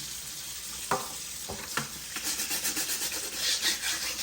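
Water running from a faucet, with a few knocks about a second in. From about two seconds in, a brush scrubs a dishwasher filter in quick, rhythmic strokes.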